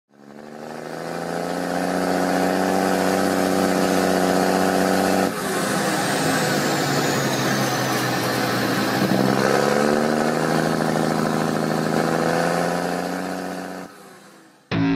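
Tractor engine running and revving, fading in at the start and fading out near the end, with a brief break about five seconds in. A high whine falls in pitch soon after the break, and the engine pitch rises around two-thirds of the way through.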